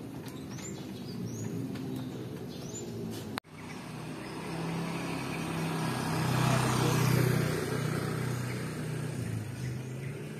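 A few short bird chirps over steady outdoor background noise. After an abrupt break, a motor scooter passes by: its engine grows louder to a peak partway through and then fades away.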